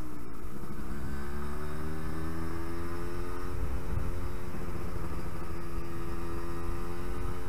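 Yamaha RD125LC YPVS two-stroke single-cylinder engine running under way, its revs climbing over the first couple of seconds and then holding steady, over a low rumble.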